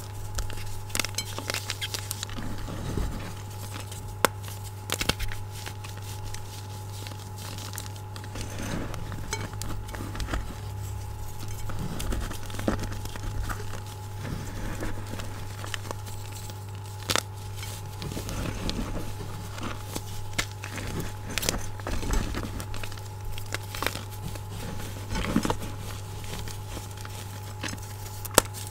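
Fresh blocks of gym chalk crushed and crumbled between the fingers in a bowl of chalk powder: soft crunching and powdery patter broken by frequent sharp cracks as pieces snap, with minor squeaks from the oiled, chalky hands. A steady low hum runs underneath.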